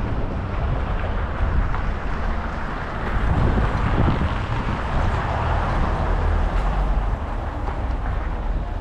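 Wind rushing over the microphone during a ride through city traffic: a steady noise with a heavy low rumble, rising and falling a little.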